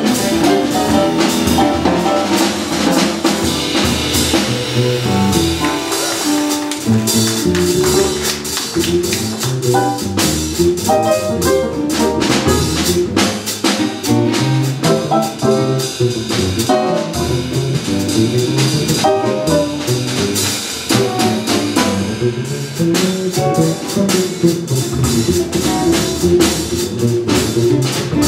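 Live jazz quartet playing: electric keyboard, upright bass, drum kit and guitar, with the drums and cymbals busy throughout.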